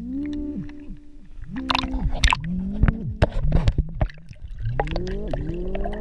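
Eerie music of several overlapping tones that slide up and down, with water splashing and gurgling about two to four seconds in.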